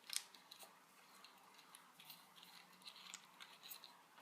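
Near silence, with faint small clicks and light handling noises as a hard drive enclosure and its cables are handled. The clearest click comes just after the start.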